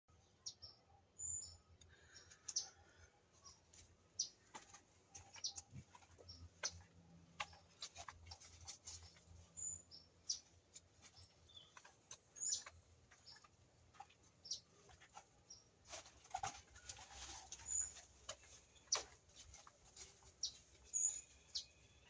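Wild birds chirping: many short, high chirps and call notes scattered throughout, faint against a quiet background.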